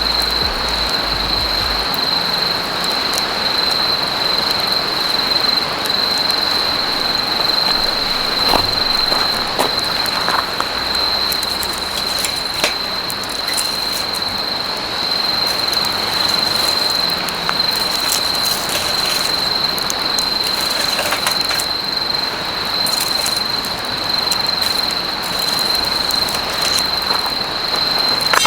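Wood campfire crackling, with scattered sharp pops over a steady hiss, and a steady high-pitched tone running through it.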